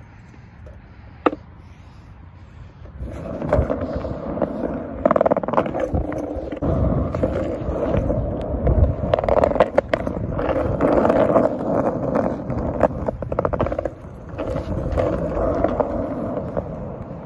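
Skateboard wheels rolling on a concrete sidewalk: a steady rolling rumble that starts about three seconds in, broken by sharp clacks, and briefly drops away near the end.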